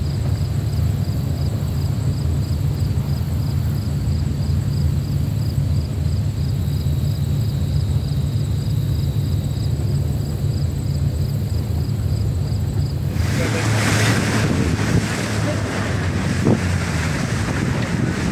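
A boat engine runs with a steady low hum as the boat moves across the river. About two-thirds of the way through, a loud rush of wind on the microphone and splashing water swells up over it.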